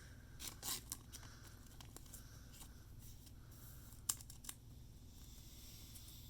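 Faint rustling of baseball cards and pack wrapper being handled, with a sharp click about four seconds in.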